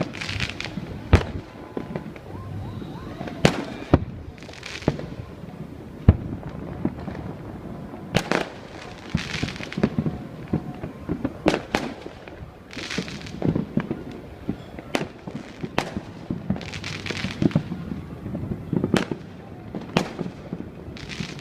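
Aerial fireworks going off: irregular sharp bangs every second or two, several followed by a crackling hiss lasting about a second as crackle-effect shells burst, over a low murmur of crowd voices.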